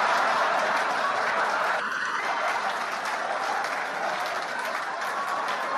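Comedy club audience applauding and laughing after a punchline, the applause strongest at first and easing slightly.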